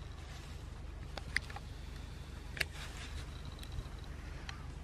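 Small electric motor of a scale RC model running with a steady low hum, with a few scattered sharp clicks.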